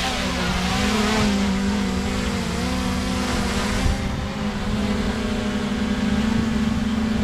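DJI Mini 3 drone's four propellers and brushless motors, spun up to lift off and then hovering close by with a steady buzzing whine whose pitch wavers slightly as it holds position. The drone is running normally again after being dried out from a swamp dunking.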